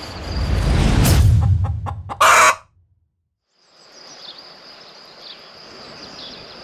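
A low rumble with a few clicks, then one short, loud, sharp sound about two seconds in. After a brief gap, crickets trill steadily.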